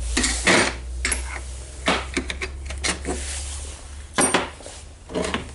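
Light hammer taps on a metal driver tool, seating a new 6002 ball bearing into a router's motor housing. The taps are a series of sharp metallic clinks at irregular intervals, with the loudest about half a second in and about four seconds in.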